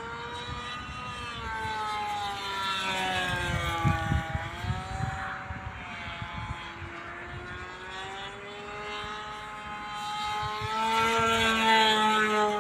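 A model airplane's OS .55 two-stroke glow engine running at full throttle in flight, a high steady whine whose pitch sinks slowly, bottoms out about halfway, then rises again near the end. Low wind rumble on the microphone about four seconds in.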